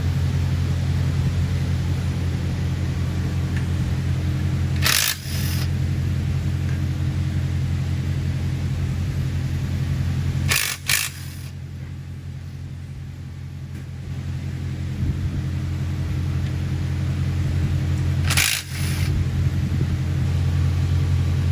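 Three short bursts of a power tool, about 5, 11 and 18 seconds in, each lasting about half a second, over a steady low hum.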